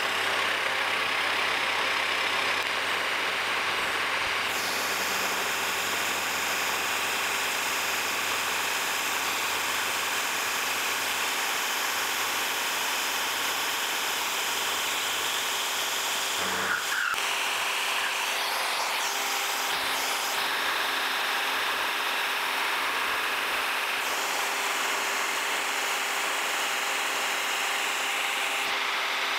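Wells-Index vertical milling machine running, its end mill taking a hand-fed cut to clean up the side edge of a steel part: a steady machining noise, with a brief change about 17 seconds in.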